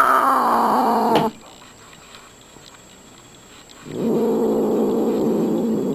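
Angry white Scottish Fold cat giving threat calls: a loud yowl falling in pitch that breaks off about a second in, then after a pause a low, steady growling yowl starting about four seconds in.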